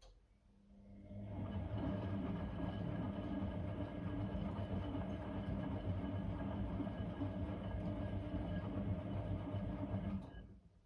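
Blomberg WA391 washing machine running during a 90 °C boil wash: a steady hum and rumble that starts about a second in, holds even for roughly nine seconds, then stops near the end.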